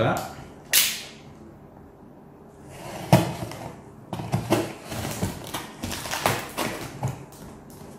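A cardboard parcel being cut open with a knife: one short, sharp noise about a second in, then from about three seconds a run of irregular scrapes and taps as the blade saws at the tough packing tape.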